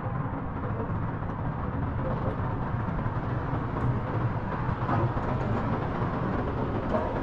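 Steady low rumble and hiss of a cable car gondola running along its cable, heard from inside the cabin, with a faint hum.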